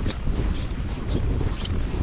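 Boots crunching through snow on lake ice at a walk, about two steps a second, under a low rumble of wind buffeting the microphone.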